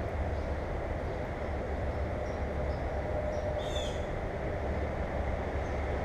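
Steady low rumble and hiss, with one short bird chirp a little past halfway and a few faint high chirps.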